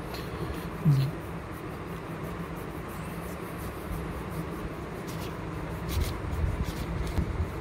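Hands rubbing and sliding a sheet of drawing paper over a table, with a few light taps and low thumps as the sheet is shifted and turned near the end. There is a brief louder sound about a second in.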